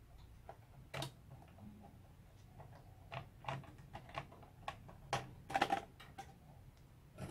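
Scattered clicks and light taps from a hand handling the insides of an opened VHS video recorder: its metal chassis, cables and circuit board. The taps come at an uneven pace, with the loudest little cluster about five and a half seconds in.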